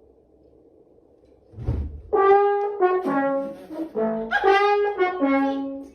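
Trombone playing a quick string of short held notes that jump up and down in pitch, starting about two seconds in just after a low thud.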